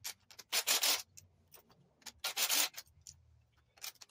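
Cordless drill bit reaming out the steel bore of a pillow block bearing, rasping against the metal in several short bursts to enlarge the hole.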